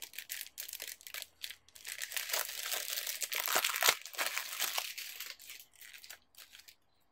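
Packaging being crinkled and torn off a spiral notebook by hand: a dense run of crackles and rustles, loudest in the middle, dying away near the end.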